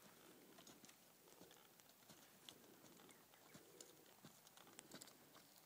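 Faint hoofbeats of a horse walking on a dirt arena: soft, irregular thuds and clicks over a quiet background.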